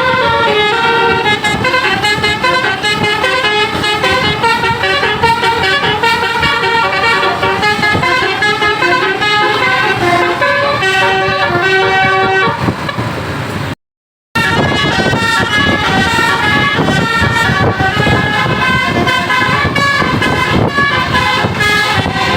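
Basuri telolet musical air horn on a bus playing a fast tune of stepped notes, several tones at once, over engine and road rumble. All sound cuts out for about half a second a little past halfway, then the tune carries on.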